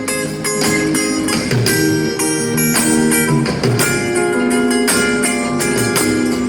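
A band playing an instrumental passage of a song: guitars with drum hits, no singing.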